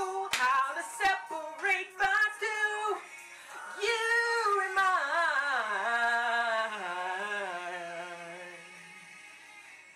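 A woman singing unaccompanied: short choppy phrases, then a long wavering run that slides down in pitch step by step and fades away near the end.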